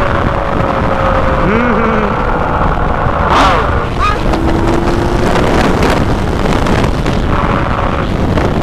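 Wind rushing loudly over the microphone of a Yamaha MT-09 three-cylinder motorcycle at highway speed, with the engine's note running faintly underneath and drifting slightly lower over the first few seconds.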